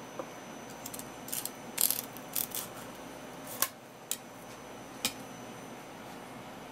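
Halfbeak fillets being handled on a wooden cutting board: a cluster of short crackly scrapes about a second and a half in, then three single sharp clicks, over a faint steady room hum.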